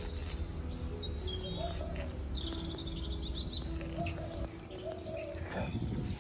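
Faint bird chirping over a steady high-pitched insect drone and a low background rumble, with a few short soft calls.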